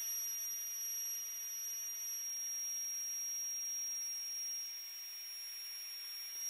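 High-speed motor of a SPICIMOMO cordless handheld vacuum running in blower mode: a steady high-pitched whine over a hiss of rushing air, dropping in pitch at the very end as it switches off.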